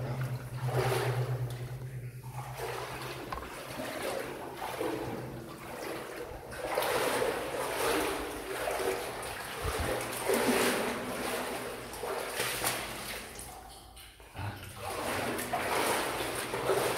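Boots wading through water in a flooded mine tunnel: a splash and slosh with each step, about every second or two.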